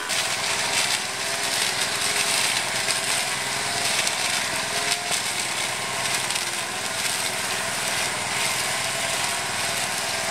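Handheld engine brush cutter running steadily as it cuts grass and weeds, its pitch wavering slightly under load over a dense hiss.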